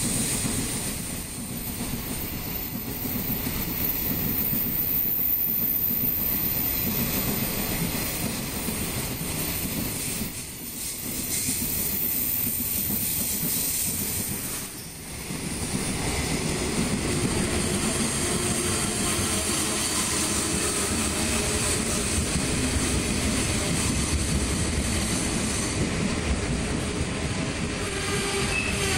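A long train of freight container flatcars, some of them empty, passing at speed: a steady noise of steel wheels running on the rails, with brief dips in loudness about ten and fifteen seconds in.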